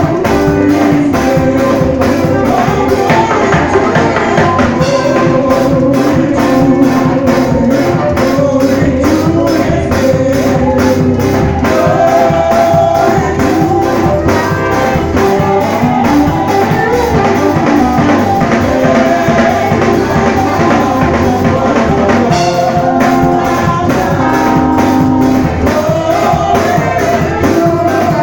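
Live gospel church band playing: a drum kit keeping a steady beat under keyboard and guitar, with voices singing over it.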